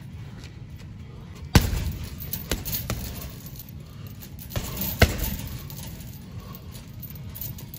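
Thumps of boxing gloves hitting a heavy punching bag: a sharp loud one about a second and a half in, a few lighter ones after it, and another strong one about five seconds in, over a low steady hum.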